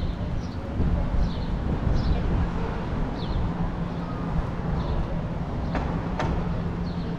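Street ambience: a vehicle engine running with a steady low hum, small birds chirping in short high notes about once a second over it, and two sharp clicks about six seconds in.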